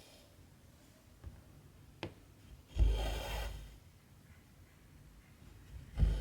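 Cotton embroidery thread drawn through 14-count cross-stitch fabric: a rasping pull lasting about a second, near the middle, with another starting near the end. Before the first pull come a couple of light clicks as the needle pokes through.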